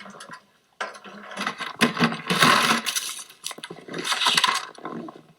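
Chunks of ice scraping and clattering as they are scooped and broken out of a frozen septic tank, starting about a second in.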